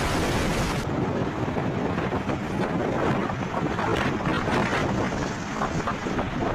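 Storm wind buffeting the microphone, with heavy driving rain: a loud, steady rushing noise with short crackling spatters in the middle.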